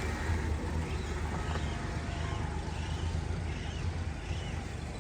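Outdoor background: a steady low rumble with faint, short, high chirping calls repeating every second or so.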